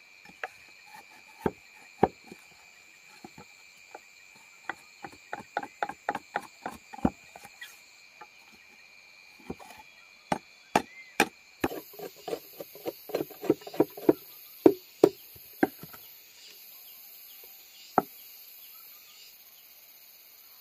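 Irregular sharp knocks of a hand tool striking wood or bamboo, as in chopping or hammering. They come in a quick run of about four a second, then a denser, duller run a few seconds later, ending with a single knock.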